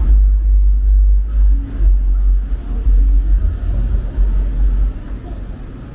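Loud, deep wind rumble buffeting the microphone of a camera carried along a street, easing about five seconds in.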